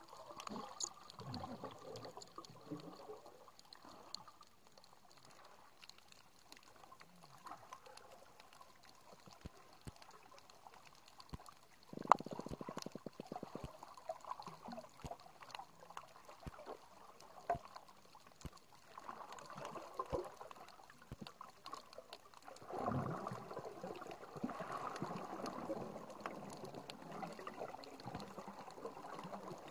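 Muffled underwater water movement picked up by a camera housing resting on the reef floor, with scattered sharp clicks throughout. Swells of rushing, bubbling water noise come near the start and again from about two-thirds of the way through. About halfway there is one loud sharp click followed by a brief rapid rattle.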